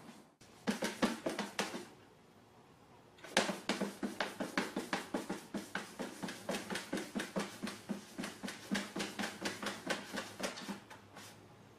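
Rapid rhythmic tapping, about four or five sharp taps a second: a short run, a pause of about a second and a half, then a longer run that fades out near the end.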